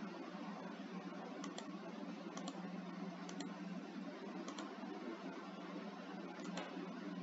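Faint, sharp clicks of a computer mouse, about one a second, over a steady low electrical hum and hiss.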